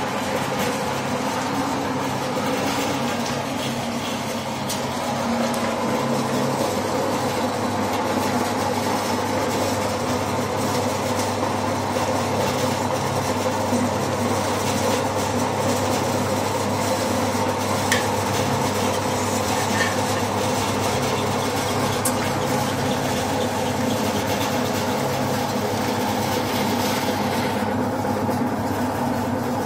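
Rambak cracker slicing machine running steadily: a 1/4 HP electric motor drives a steel-bladed disc while a log of cracker dough is fed through its tube and sliced thin. It makes a steady mechanical hum and whir, with a few sharp ticks about two-thirds of the way through.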